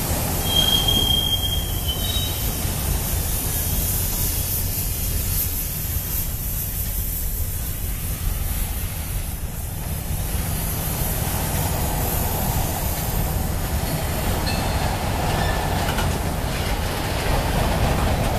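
Freight train of covered steel-coil cars rolling past: a steady rumble of wheels on rail, with a brief high wheel squeal about a second in.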